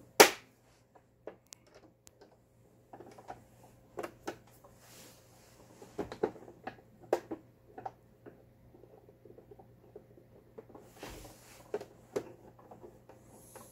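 Scattered clicks, taps and rustles of the plastic covers of a Lion 1004 household sewing machine being fitted and screwed back on by hand, beginning with one sharp click.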